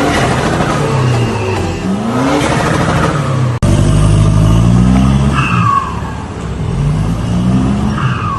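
Toyota Hilux Vigo turbodiesel being blipped several times, its engine note rising and falling with each rev. The VNT turbo whistles, with a short falling "piu" as the revs drop, heard twice in the second half.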